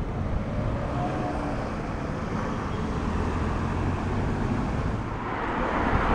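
Steady low rumble of an approaching tram mixed with passing road traffic, swelling near the end.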